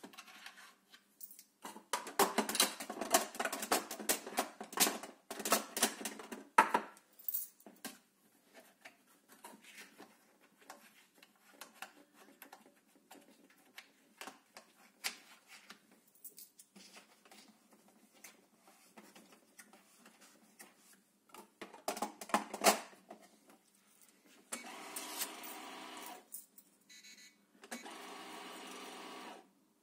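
Alfa 750 coin counting and sorting machine running, coins clattering through it thickly for about five seconds, then single coins clicking through now and then, with a short flurry past the twenty-second mark. Near the end it gives two steady buzzes of about two seconds each, the machine's audible alert.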